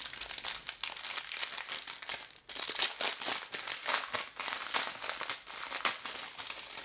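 Plastic packaging of a diamond painting kit crinkling and rustling as it is handled, a dense irregular crackle with a brief pause about two and a half seconds in.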